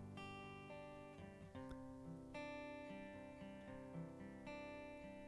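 Quiet background music: acoustic guitar strumming sustained chords that change every second or so.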